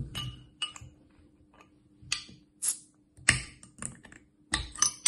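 Glass beer bottle and metal bottle opener being handled: a run of separate clinks and taps, with a sharp click near the end as the opener levers the crown cap off.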